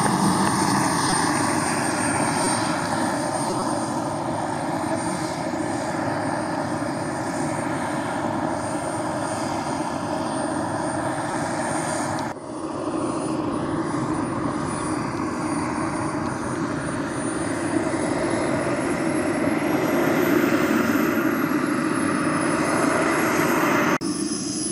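Radio-controlled L-39 Albatros model jet's engine running steadily as the model rolls along the runway: a rushing hiss with a thin high whine on top. In the second half the whine's pitch drifts up and back down.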